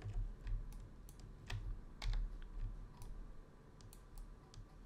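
Irregular short clicks of a computer mouse and keyboard, about a dozen, over a low background hum.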